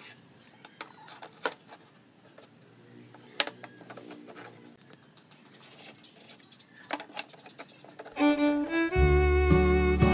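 A few sharp knocks and clicks as wooden slats and a hand tool are set down and handled on a wooden workbench. About eight seconds in, louder background music with violin-like bowed strings comes in.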